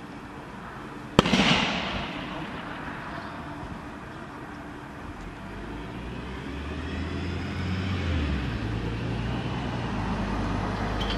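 A single sharp bang from a burning car, a burst in the fire about a second in, with a short fading crackle after it. From about halfway on, a low engine drone sets in and grows louder.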